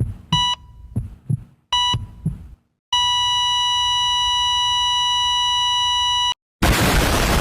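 Heart-monitor sound effect: two short beeps about a second and a half apart over thudding heartbeats, then one long unbroken tone for about three and a half seconds, the flatline that signals the heart has stopped. A loud burst of static hiss follows near the end.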